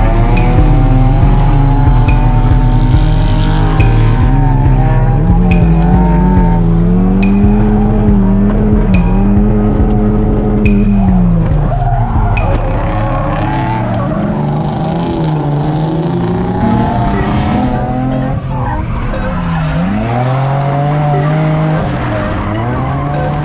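Drift car engines revving high and dropping back again and again, with tyres squealing as the cars slide sideways. Music with a steady beat plays under it for about the first six seconds.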